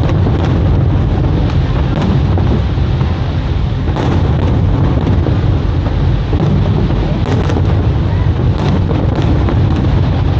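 Fireworks display going off: repeated sharp bangs scattered over a continuous deep rumble.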